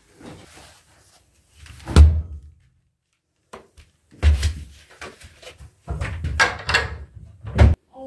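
Handling knocks of a plastic laundry basket and cabinet doors being moved about: a series of thumps, the loudest about two seconds in, and several more in the last three seconds.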